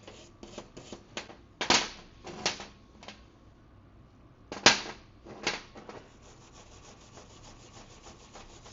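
Hand wire brush scrubbing metal dirt-bike footrests in separate scraping strokes. A few hard strokes come about two and five seconds in, then quicker, lighter strokes near the end.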